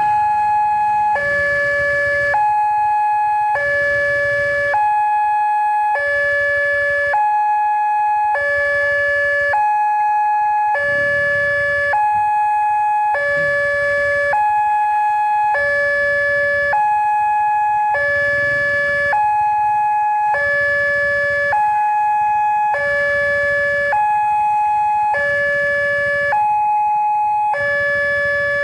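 Railway level-crossing warning alarm sounding while the barriers are down: an electronic two-tone signal switching evenly between a higher and a lower note, about half a second each, repeating without pause. It warns that a train is approaching.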